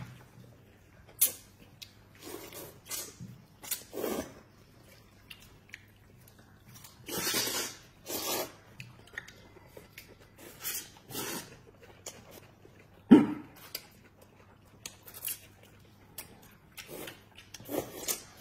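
Two people slurping and chewing noodles in irregular bursts, the longest slurps in the middle, with a few sharp clicks. The loudest is a single sharp knock or smack about 13 seconds in.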